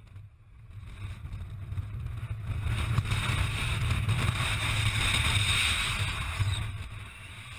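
Wind rushing over the microphone of a paraglider in flight, a low buffeting rumble with a hiss on top that builds over the first few seconds, peaks and eases off near the end.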